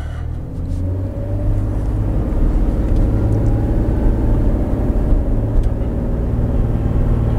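Ford F-150 pickup driving slowly while towing a travel trailer, heard from inside the cab: a steady engine and road rumble, with a few faint clicks.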